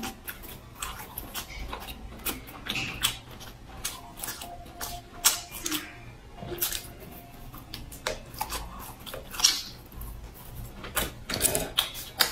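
Close-miked eating of grilled sausage: biting and chewing with wet mouth clicks and smacks, coming irregularly throughout.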